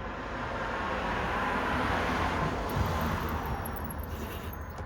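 A passing road vehicle, its tyre and engine noise swelling and then fading over a few seconds.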